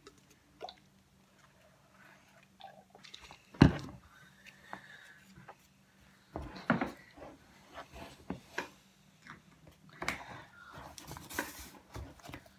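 Slime being stirred with a spoon and squished by hand in a plastic mixing bowl: scattered sticky squelches and clicks, with a sharp knock a little under four seconds in and more knocks and squishing later on.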